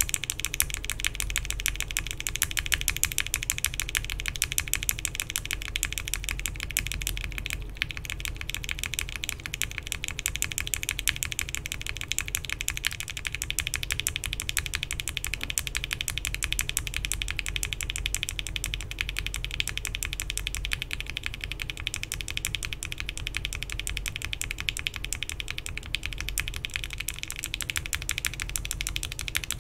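Continuous fast typing on a mechanical keyboard (Bakeneko60 with FR4 plate and PBT keycaps) fitted with linear frankenswitches: UHMWPE stems in Gateron Ink bottom housings, with Gateron Milky Yellow tops and then, about halfway through, Cherry MX tops.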